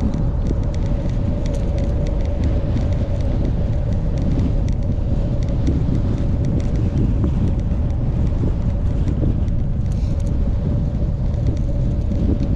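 Wind noise buffeting the microphone of a rider moving along a road: a steady, loud low rumble with a faint constant hum above it.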